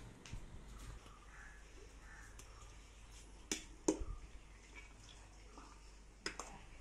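Cooked rice being scooped by hand out of a stainless steel pot into a steel bowl: soft handling sounds, with a few sharp knocks of steel on steel, two close together about halfway through and one more near the end.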